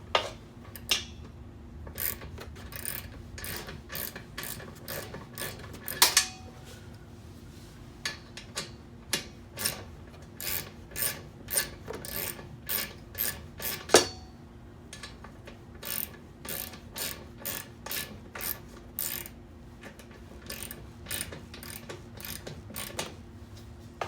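Repeated sharp mechanical clicks, about two a second, in runs with short pauses, over a faint steady hum.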